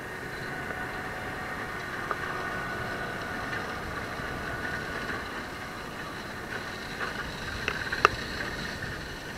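Case IH Puma 240 tractor running steadily as it pulls a seed drill through loose soil, a continuous machinery noise with faint steady whining tones, and a sharp click about eight seconds in.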